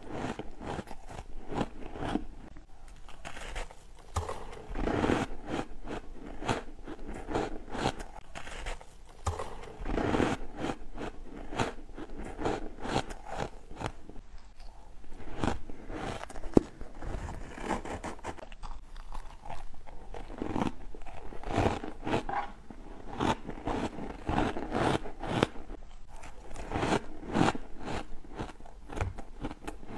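Soft shaved ice crunching as it is bitten and chewed close to the microphone, with handfuls squeezed and scooped from the tub. The crunches come many to the second, quick and irregular.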